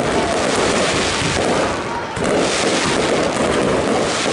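Fireworks display going off in a dense, continuous barrage of bursts and crackles with no pause.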